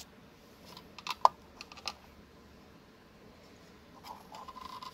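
A few sharp clicks and clinks, the loudest ringing briefly, then a quick run of soft ticks near the end: small hard objects being handled.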